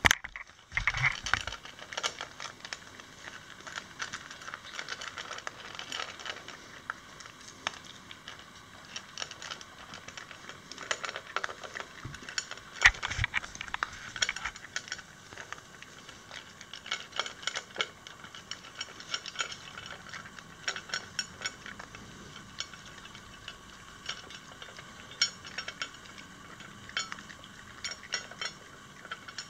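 Yorkshire terrier eating from a stainless steel bowl: irregular clinks and clicks of food and teeth against the metal, coming in clusters, with one sharper clink about 13 seconds in.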